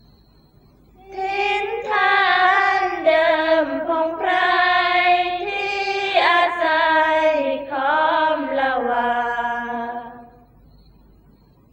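Sarabhanya, Thai Buddhist devotional verse sung in an Isan melody: a high voice sings one long drawn-out phrase with ornamented bends. The pitch steps down toward the end, and the phrase fades out about ten seconds in.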